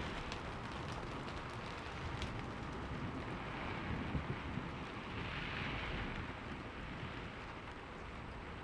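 Steady rain falling with a low thunder rumble underneath, and a few sharp drip ticks in the first couple of seconds.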